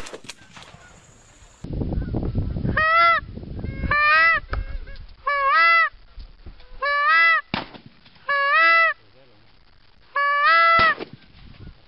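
Six loud goose honks in a row, about one every second and a half, each rising and then breaking in pitch. A low rumble sits under the first two.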